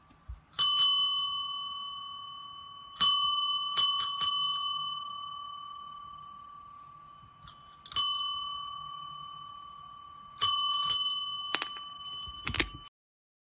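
Chrome desk service bell struck again and again by a cat's paw, each ding ringing out and slowly fading; a cat rings it this way to ask for a treat. Some strikes come singly and some in a quick run of three, and a few short rattly knocks come near the end before the sound cuts off.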